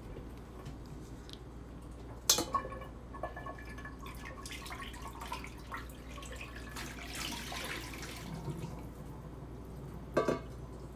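Water dripping and trickling through a strainer, with two short knocks, one about two seconds in and one near the end.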